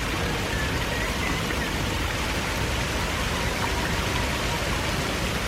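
Steady rushing, hissing noise, with a few faint bird chirps in the first second or two.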